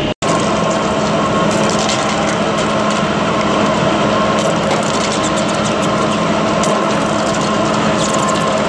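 A large lathe turning an Inconel 718 bar while a trepanning tool cuts into its end face under flood coolant. The result is a steady, loud machining noise with a hum and frequent light clicks. The sound cuts out for an instant just after the start.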